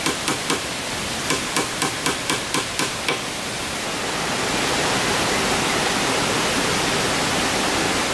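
Quick, evenly spaced hammer blows, about four a second: three, a short pause, then eight more, over a steady rushing noise. After about three seconds the hammering stops and the rushing noise grows louder.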